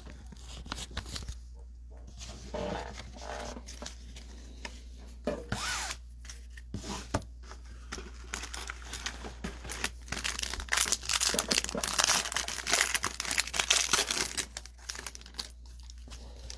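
Foil trading-card pack wrappers crinkling and tearing open, with cards being handled. The densest, loudest tearing and crinkling comes about two-thirds of the way through and lasts about four seconds.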